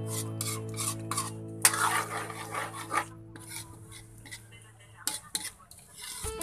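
Metal spatula stirring thick meat sauce in a pan, scraping against the pan in a run of irregular strokes that ease off for a while past the middle.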